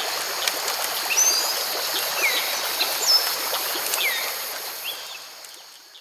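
Water flowing in a stream with a steady rushing sound, and birds calling over it in short sweeping chirps; it fades out near the end.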